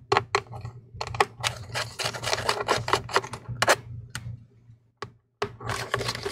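Quick, irregular clicks and ticks of a small pentalobe P5 screwdriver turning out the bottom-case screws of a MacBook Air A2179, with a short pause about five seconds in.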